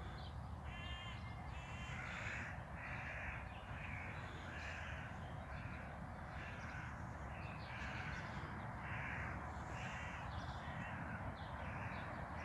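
A crow cawing in a long, even series, a little under two caws a second, over a steady low rumble.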